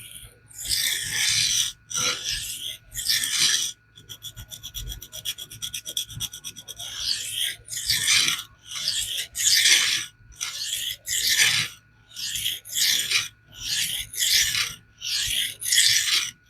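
Knife blade of CPM SPY27 steel stroked again and again across 100-micron aluminium oxide abrasive film, reprofiling the edge: a rasping scrape with each pass, roughly one stroke a second. Partway through there is a run of quick, short back-and-forth strokes.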